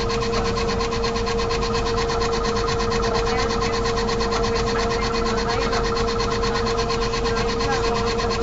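A small machine running steadily, with a rapid even clatter of about ten ticks a second over a constant hum.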